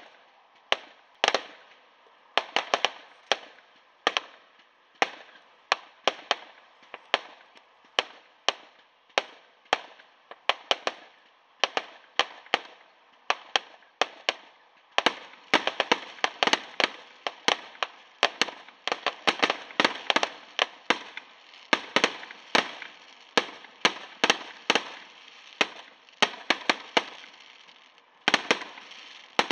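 Aerial fireworks going off in quick succession: a continuous run of sharp pops and cracks, several a second. The run grows denser and louder about halfway through.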